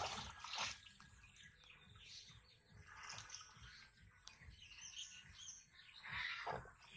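Shallow water splashing and sloshing as someone wades through it, loudest at the start and again about six seconds in. Birds chirp in the background.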